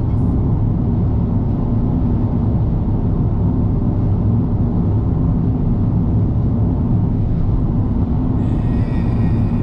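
Steady low road rumble of a car cruising at speed on an expressway, tyre and engine noise heard from inside the cabin.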